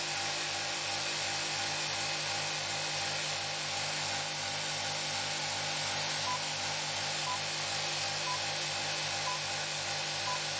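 Motor-driven steel-disk homopolar generator ('N machine') spinning steadily under a resistor load, with a low pulsing hum of about three beats a second over a steady hiss. About six seconds in, short electronic beeps start, about one a second.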